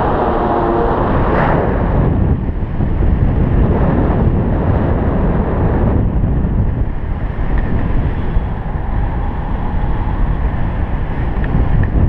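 Wind buffeting the action camera's microphone in paragliding flight: a loud, steady, low rumble of rushing air.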